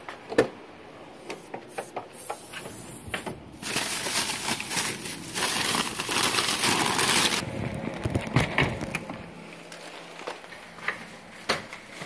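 Plastic grocery bags rustling and crinkling as they are handled and lifted out of a car's cargo area, loudest in the middle, with scattered sharp knocks and clicks.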